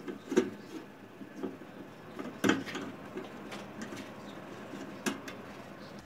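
Hand screwdriver turning a screw into a microwave oven's sheet-metal frame: scattered sharp clicks and taps, about three of them louder than the rest.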